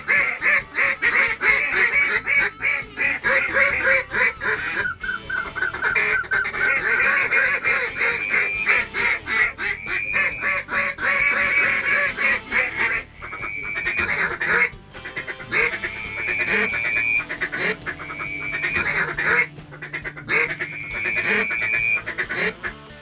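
Waterfowl calling: a rapid, dense run of quacks and honks, then longer drawn-out honks, one after another, in the second half.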